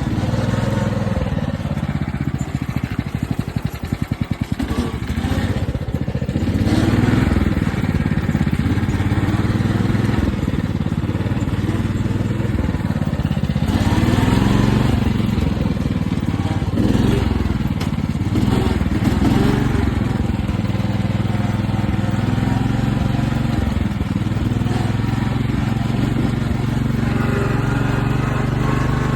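Riding lawn mower's engine running as it is driven, its pitch rising and falling several times with throttle and load. It runs choppy and uneven for a few seconds near the start.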